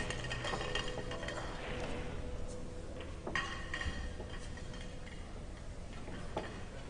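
A few sharp clicks of pool balls knocking together, about three seconds in and again near the end, over a steady faint hall background with a low hum.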